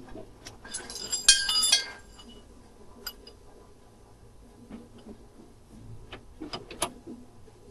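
Metal hand tools clinking and rattling against one another for about a second, with a bright metallic ring, followed by scattered light clicks and taps.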